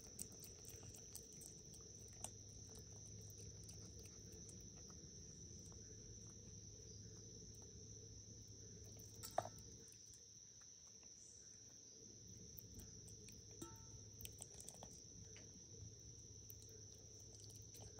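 Faint, steady high chirring of crickets, with a few soft clicks scattered through and one sharper click about nine seconds in.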